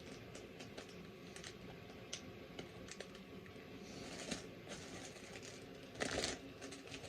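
LEGO pieces and their packaging being handled and sorted: a scatter of light plastic clicks and small rustles, with a louder, brief rustle or clatter about six seconds in.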